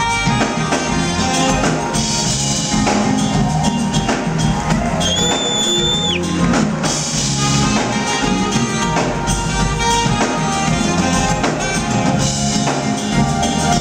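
Live smooth-jazz band playing: saxophone over electric guitar, electric bass and drum kit. About five seconds in, a high whistle is held for about a second and then drops away.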